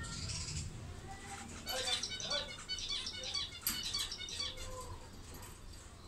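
Budgerigars chattering: a run of quick, high chirps and warbled notes lasting about three seconds, starting a little under two seconds in. A short rustle comes at the very start.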